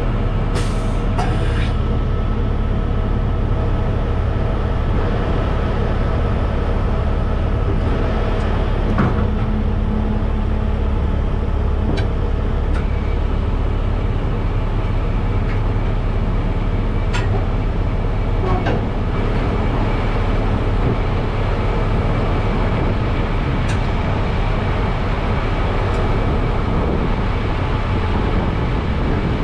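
Heavy truck diesel engine idling with a steady low rumble, with a few sharp metallic clanks from chains being handled on the lowboy trailer.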